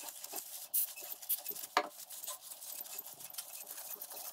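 A paper shop towel wiping and rubbing the dirty camshaft bearing saddles of a BMW N52 cylinder head after a spray of brake cleaner: an irregular rustle of many small scrapes and clicks.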